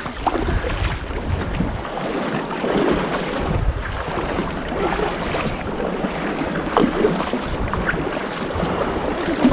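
Paddles dipping and splashing in sea water as an inflatable kayak is paddled along, with wind gusting on the microphone.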